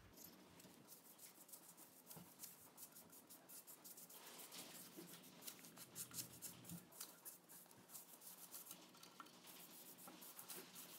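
Faint soft rubbing of a foam paintbrush spreading wood stain across a wooden shelf board, with many small irregular ticks and scrapes, a little louder in the middle.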